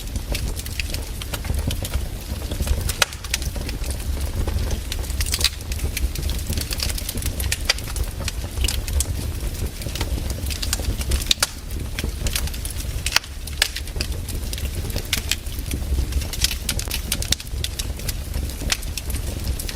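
Burning firewood crackling: irregular sharp pops and snaps over a low steady rumble.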